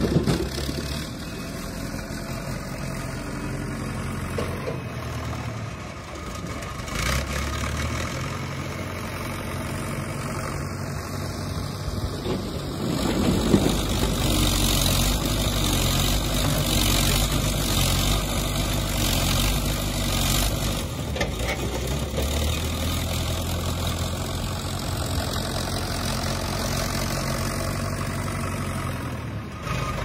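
Backhoe loader's diesel engine running and revving as the machine drives and works its loader bucket, louder for several seconds in the middle, with a couple of sharp knocks.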